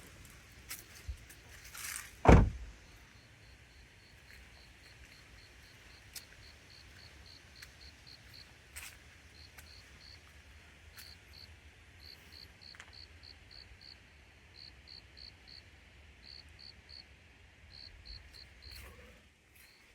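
A single heavy thump about two seconds in, then an insect chirping in short, evenly pitched high pulses, grouped in twos to fours, for the rest of the time.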